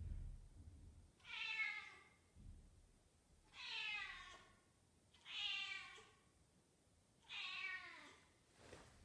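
Young British shorthair female cat giving four long, drawn-out meows, each falling in pitch at the end: the calling of a cat in heat, asking for a tom.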